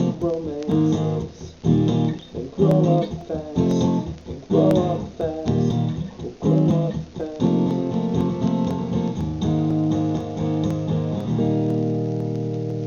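Guitar outro with no singing: rhythmic strummed chords broken by short stops, then longer held chords, ending on a final chord left to ring and slowly fade.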